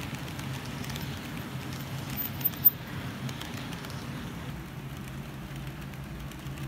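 HO-scale model train running on the layout track: a steady rumble of wheels on rail with a low hum. There is one sharp click a little under three seconds in, and the higher hiss eases after about four seconds as the train moves away.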